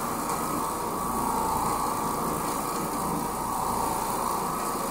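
Oreck Orbiter orbital floor machine running steadily, its motor droning as the damp bonnet pad scrubs a pre-sprayed carpet.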